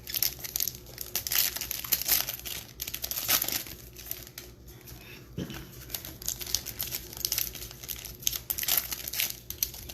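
Plastic wrapping on trading-card packs crinkling and tearing as the packs are handled and opened, an irregular crackle throughout.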